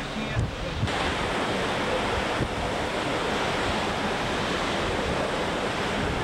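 Hurricane-force wind and heavy surf: a steady loud rush of wind and breaking waves, with gusts buffeting the microphone in low thumps.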